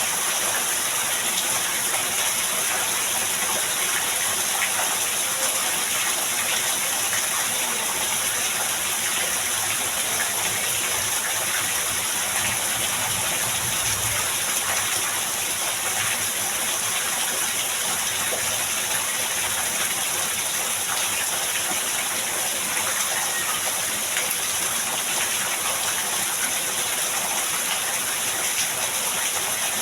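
Heavy rain pouring steadily, an even hiss of water, with a brief low rumble around the middle.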